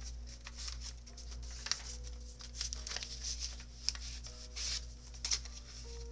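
Paper pages of a handmade junk journal being handled and turned, with repeated soft rustles and brushes and a few sharper page flicks. A quiet melody of held notes plays underneath.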